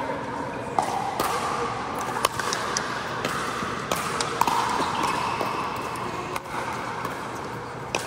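Pickleball paddles striking a hollow plastic ball during a rally: a series of sharp pocks at uneven spacing, roughly one every half second to two seconds.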